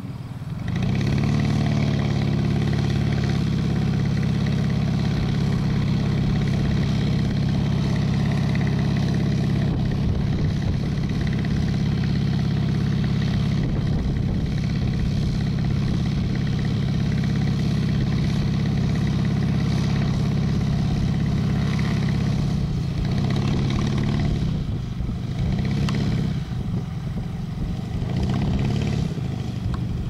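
Hummel Bird light aircraft's engine and propeller revving up sharply about half a second in and held at a steady high speed while the plane stands still, as in a pre-takeoff run-up. Near the end the engine speed rises and falls several times.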